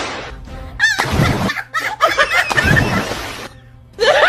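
A person tumbling off a bamboo footbridge into a shallow muddy canal: short yelps and two noisy bursts of splashing water.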